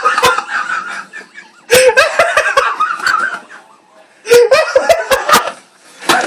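Loud laughter in three long bursts, with short pauses between.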